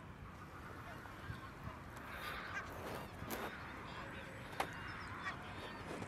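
A large flock of geese honking together as a steady chatter of many calls, with a few louder single calls standing out about three and four and a half seconds in.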